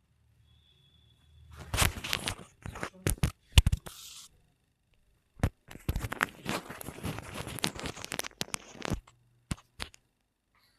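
Hands working a patient's neck during a chiropractic neck adjustment: rustling and crunching in two spells of a few seconds, with several sharp cracks, the loudest about a third of the way in, then two lone clicks near the end.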